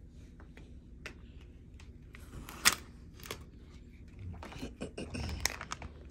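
Handling noise: a hanging card feature tag on a TV being flipped and rustled while the phone is moved about, a series of scattered clicks and rustles. There is one sharp click about two and a half seconds in and a denser patch of rustling near the end.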